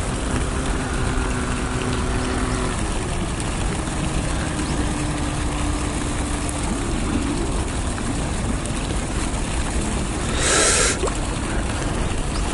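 Wind buffeting the microphone: a steady low rumble with hiss, and a brief louder hissing gust about ten seconds in.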